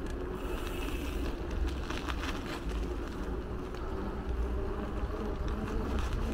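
Steady low rumble of wind and road noise from a bicycle ride, with a faint steady hum and a few brief clicks about two seconds in.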